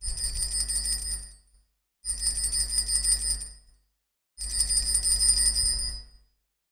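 Altar bells shaken three times, each ring lasting about a second and a half with a short pause between, marking the elevation of the chalice at the consecration.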